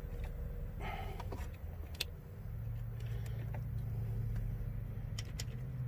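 A steady low hum with a few light clicks and clinks of hand tools and bolts against metal as the shifter is being fitted to the transmission.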